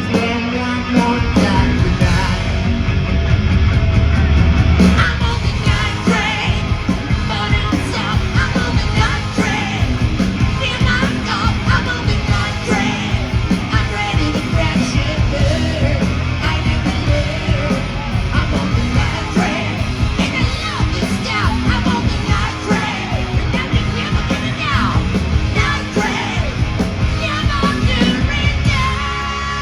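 Live hard rock band playing at full volume, with a lead singer's vocal over the band.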